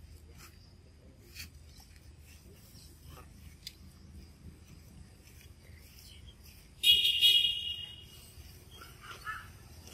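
A shrill, high-pitched call lasting about a second, about seven seconds in, far louder than the faint clicks and background before it, followed near the end by a few softer chirps.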